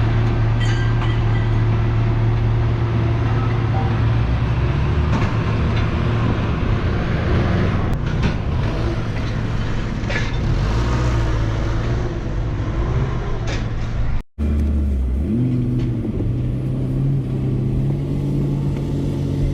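Pickup truck engine running steadily, with a low hum and road and yard noise. The sound drops out for an instant about 14 seconds in, then the engine carries on.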